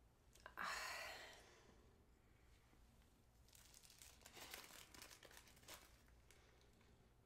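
Faint: a short sniff, then the paper wrapper of a soap bar crinkling in the fingers for a couple of seconds.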